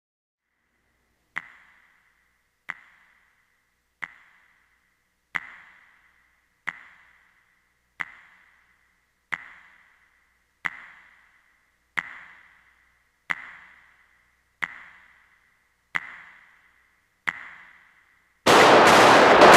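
A sharp, ringing ping repeats slowly and evenly, thirteen times about a second and a third apart, like a ticking countdown effect over a gunfight standoff. About a second before the end a loud gunshot cracks in and rings on.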